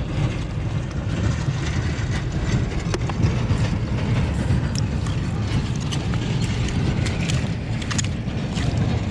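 Wind buffeting the microphone: a loud, rough, fluctuating low rumble, with a few short clicks on top.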